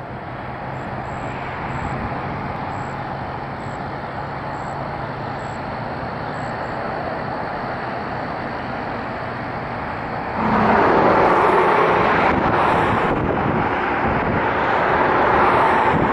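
Jet engines of a Boeing 737-800 (CFM56-7B turbofans) at takeoff power on the runway roll: a steady roar with a low hum, slowly building. About ten seconds in the sound jumps suddenly louder into a harsher rushing noise.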